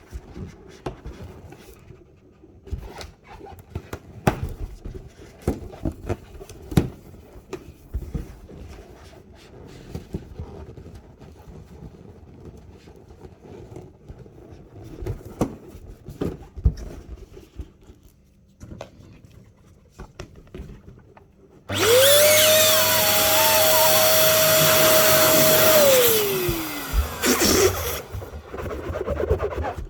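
Rubber balloons being handled, with scattered light clicks and taps, then an electric balloon pump switching on. Its motor whine spins up quickly, runs steadily for about four seconds while inflating a balloon, and falls away as it shuts off.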